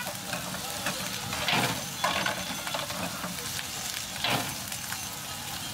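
Fried rice cooking in a large black wok over a gas burner: a steady sizzle, broken by three short louder strokes, twice about one and a half to two seconds in and again about four seconds in.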